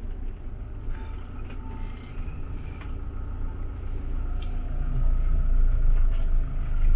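Motorhome engine and road noise heard from inside the cab while driving: a steady low rumble that grows louder over the last couple of seconds.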